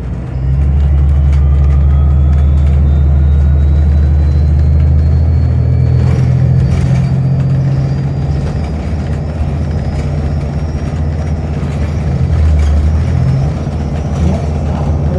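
City transit bus engine running with a loud, steady low drone heard from inside the cabin, with a faint whine rising slowly in pitch.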